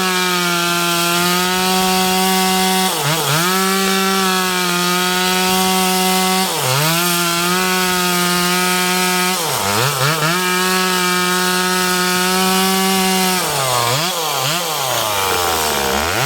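Ferrino two-stroke chainsaw running at high revs while cutting firewood, its pitch dropping briefly and coming straight back about three times. Near the end the engine revs up and down several times in quick succession.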